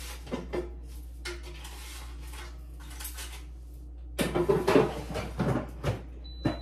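Clatter and knocks of an air fryer basket being handled and pushed into the air fryer, with the loudest burst of clattering about four seconds in.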